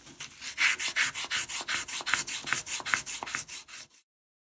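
Fine black sandpaper rubbed in quick back-and-forth strokes, several a second, over a dried clay puppet head to smooth it. The strokes cut off abruptly about four seconds in.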